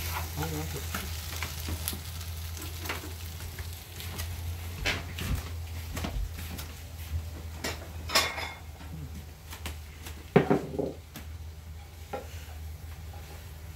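Vegetables frying in oil in a pan, sizzling steadily while being stirred, with scattered scrapes and clicks of the utensil against the pan and a louder, briefly ringing knock about ten seconds in.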